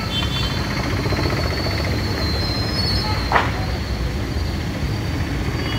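Steady low rumble of passing motor traffic, with a thin high whine held over it and a short scrape about three seconds in.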